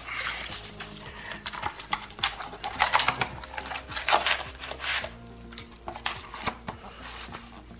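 Irregular taps, clicks and rustles of a cut peel-and-stick vinyl plank being slid into place and pressed down by hand on the floor, with faint background music.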